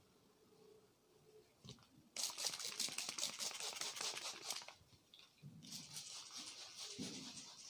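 A barber's hands working briskly over a customer's scalp and hair during a head massage, a rapid crackling rubbing-and-patting in two spells of a few seconds each, the first starting about two seconds in.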